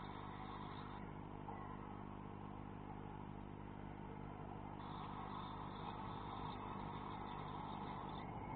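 Faint, steady background hum and hiss inside a swift nest box, with no distinct calls or knocks.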